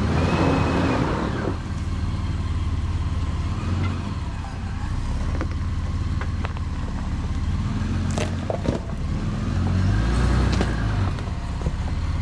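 Toyota LandCruiser 4WD engine running steadily at low revs as it crawls over a rocky dirt track, with the crunch of tyres on loose stones and a few sharp clicks and knocks from rocks under the wheels, most of them around eight seconds in.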